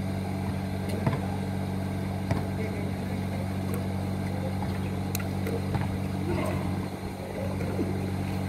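A steady low mechanical hum from an unseen machine, with a few sharp thuds of a basketball bouncing on a concrete court.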